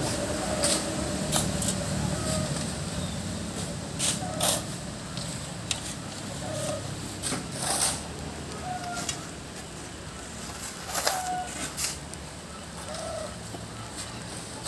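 Shovels scraping and digging into river sand, with sand thrown into a dump truck's bed, as a string of short, uneven strikes. Chickens cluck now and then.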